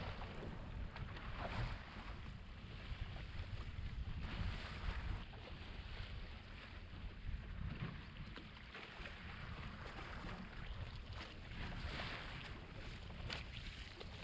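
Sport-fishing boat's engine running steadily with a low rumble, and wind gusting on the microphone.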